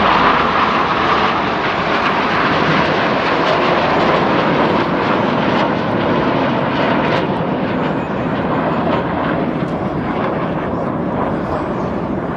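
Jet roar from the Red Arrows' BAE Hawk T1 jets flying their display in formation. It is loud and steady, easing off slightly toward the end.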